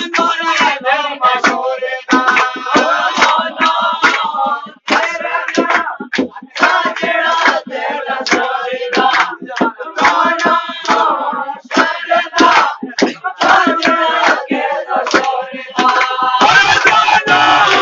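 Pahari folk song: singing voices carried over a steady beat of hand clapping.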